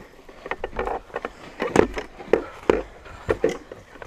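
Footsteps crunching and scuffing over debris on a littered floor, a string of irregular steps about two a second.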